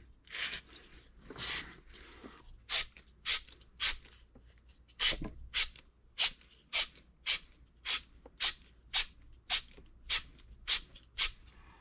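Abrasive being scrubbed back and forth over the end of a copper pipe, cleaning it bright so the solder will stick. Short rasping strokes come about two a second, after two softer strokes at the start.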